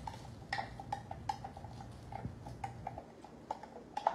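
A spoon knocking and clinking against the inside of a glass mason jar while muddling and stirring blueberries and rosemary: irregular light taps, a few a second, each with a short glassy ring.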